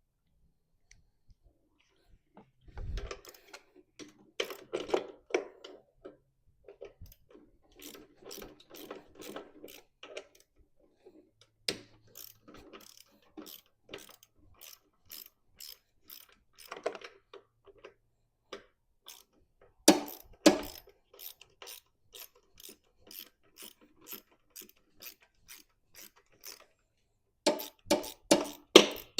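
Hand ratchet wrench clicking in runs as fasteners are worked during mower repair, with louder bursts of clicking about a third of the way in, around two-thirds through and near the end.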